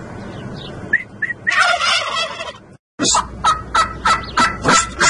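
Domestic turkey toms gobbling: a few short chirps, then a loud gobble about a second and a half in; after a brief dropout, a quick run of repeated gobbling calls at about four a second.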